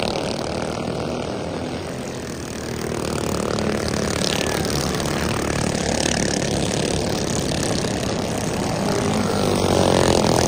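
Several racing go-kart engines buzzing at speed as the karts circle the track, growing louder near the end as karts pass close by.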